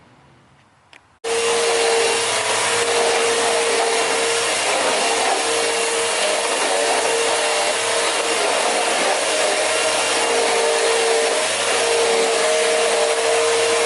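An electric power tool switches on about a second in and runs steadily with a constant whine over a rushing noise, cleaning dirt away from around the engine.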